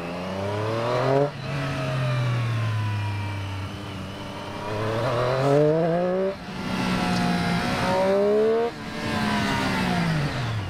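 Triumph Street Triple 765 RS inline three-cylinder engine heard from on board. Its revs climb under acceleration and drop sharply three times, about a second in, about six seconds in and near the end, as it is run up through the gears. The revs then fall steadily in the last couple of seconds as the bike slows.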